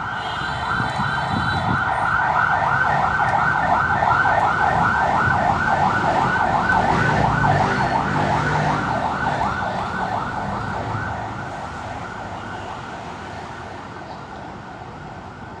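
Emergency vehicle siren on a fast warbling yelp, about four cycles a second, fading away after about ten seconds over a low rumble of traffic.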